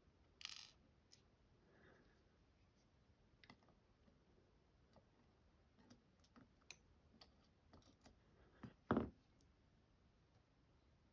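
Scattered faint metallic clicks and ticks of small lock pins and parts being handled and set down, with a louder knock about nine seconds in.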